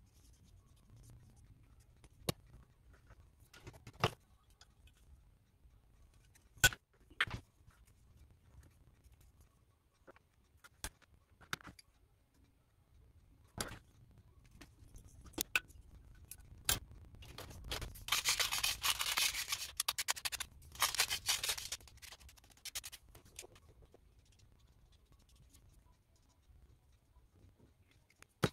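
Hand snips cutting through a wooden craft stick, giving sharp single clicks every second or two, with a scratchy rasping stretch of about five seconds in the middle.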